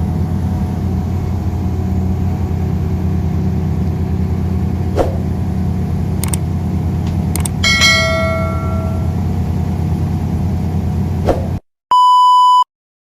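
Steady drone of a bus engine heard from inside the passenger cabin, with a few clicks and a short ringing chime about eight seconds in. The sound cuts off abruptly near the end, followed by a single half-second electronic beep.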